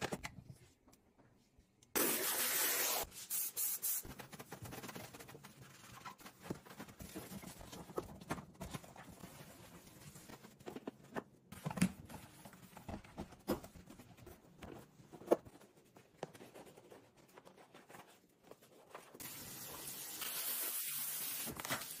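A trigger spray bottle of dish spray hisses for about a second, then a cloth rubs and wipes around the inside of a plastic dishwasher tub, with scattered small clicks and knocks. Near the end a steadier hiss of a dish brush scrubbing in soapy water takes over.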